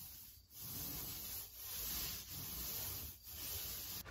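Paint roller on an extension pole being rolled over a wall: a soft rubbing hiss in repeated strokes about a second apart.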